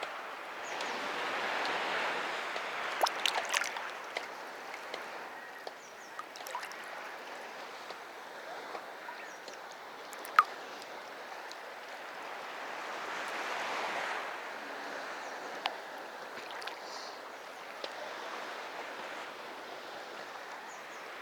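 Sea waves washing up on the beach, swelling twice, about two seconds in and again near fourteen seconds, with a few short sharp clicks over the wash.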